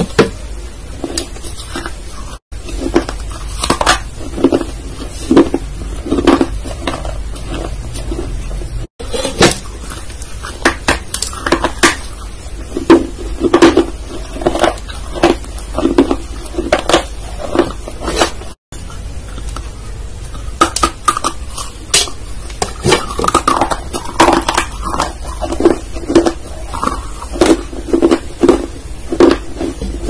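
Close-miked mouth sounds of chewing: rapid wet crunches, clicks and smacks, several a second. The sound cuts out briefly three times.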